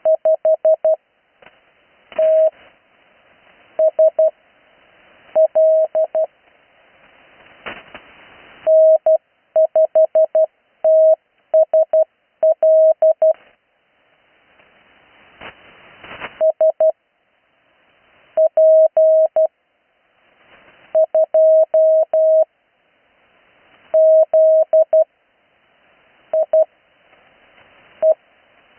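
Slow Morse code (CW) received off the air on the 80 m amateur band: a single steady beep tone keyed into dots and dashes, in separate groups spelling out call signs. Between the groups, band hiss swells up, and two sharp static crackles come about a quarter and halfway through.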